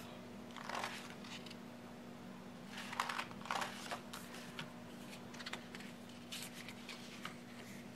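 Paper rustling and a few soft clicks as the pages of a disc-bound Big Happy Planner are turned and a sticker book is handled, in three short bouts, the longest about three seconds in, over a faint steady hum.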